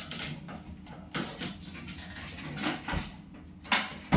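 Objects being handled and set down on a kitchen shelf: a series of irregular knocks and clicks, the sharpest one near the end.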